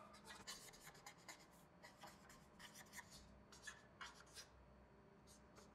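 Faint squeak and scratch of a felt-tip marker on a whiteboard as someone writes: a quick run of short strokes that thins out near the end.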